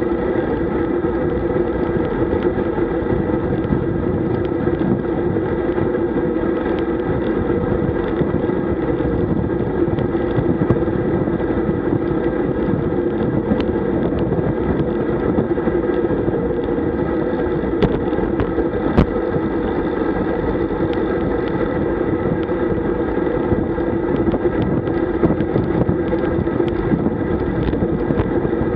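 Steady road and wind noise from a road bicycle riding fast in a group: a constant rumble of tyres on asphalt with wind buffeting, and a few faint clicks and knocks from the bike over the road surface.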